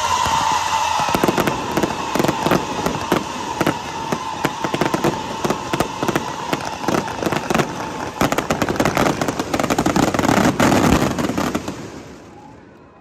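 Fireworks barrage: shells launching and bursting in rapid succession, many sharp bangs a second with crackling in between. It is the show's closing volley, and the bangs die away about a second before the end.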